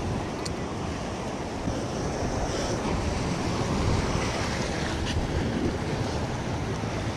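Wind buffeting the microphone over waves washing against the rock jetty.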